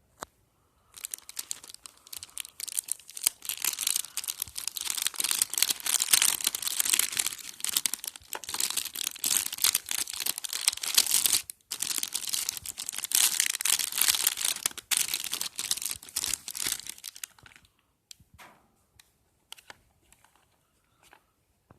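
Packaging crinkling and rustling as it is handled and unwrapped, a dense crackle lasting about sixteen seconds with a brief break midway, then a few scattered clicks near the end.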